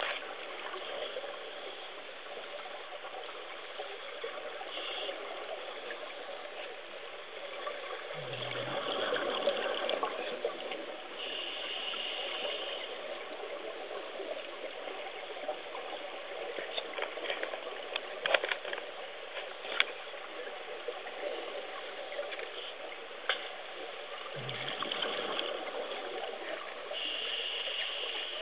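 Underwater sound: a steady watery hiss, with two louder bubbling rushes from a scuba diver's regulator exhaust, about eight seconds in and again later, and a few sharp clicks in between.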